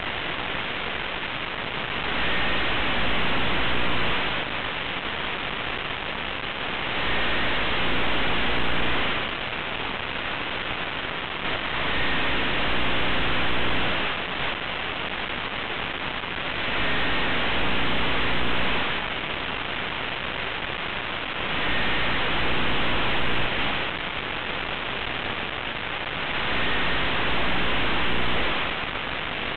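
Steady hiss like radio static, swelling louder for about two seconds every five seconds, with a faint low hum underneath.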